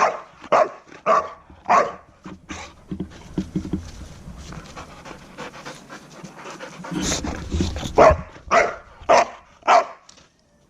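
Dog panting hard in runs of loud, rhythmic breaths, about two a second, at the start and again about eight seconds in, worked up from a game of fetch.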